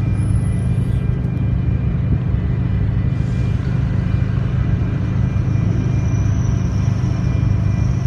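Steady low hum and rumble of a container ship's machinery running, with faint steady higher tones above it.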